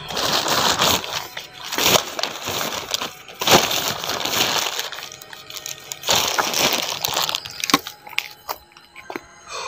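A plastic bag rustling and crinkling in irregular bursts, with a few sharp clicks near the end.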